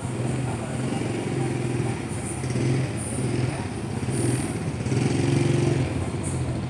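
Small motorcycle engine running at low speed, its note rising and easing every second or so as the throttle is worked through tight turns.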